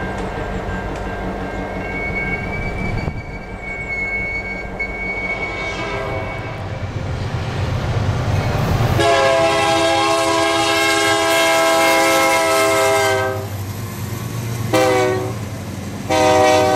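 Diesel freight locomotives passing close by. First a BNSF GP38-2 runs past with a steady engine rumble. Then a Union Pacific train led by an SD70M comes in with a rising rumble and sounds its air horn: a long blast of about four seconds, a short one, and another long one starting near the end.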